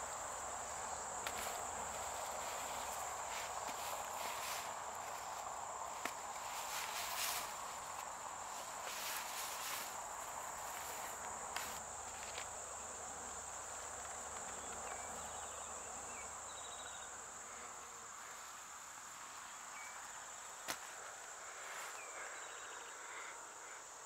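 Crickets chirping in a steady, high-pitched drone, with a few faint clicks scattered through.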